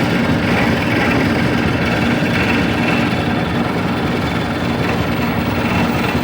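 A machine's motor running steadily at a constant speed, with a low hum under a noisy mechanical whir.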